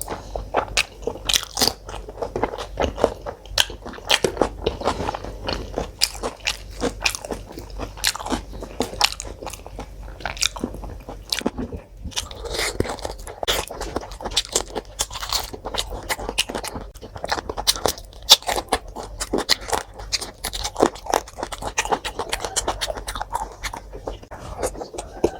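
Close-up mukbang eating sounds: a person biting and chewing, with many irregular crunches and wet clicks of the mouth.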